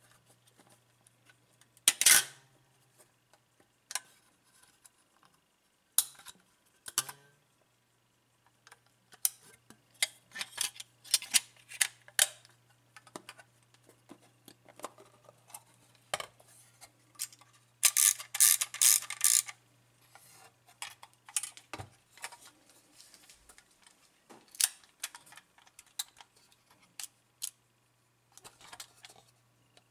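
Clicks and small mechanical rattles of a LOMO Lubitel 166B twin-lens reflex camera being handled, its film-winding knob, back latch and lens rings turned and set. There is a sharp click about two seconds in and a quick run of clicks around eighteen seconds in, over a faint steady low hum.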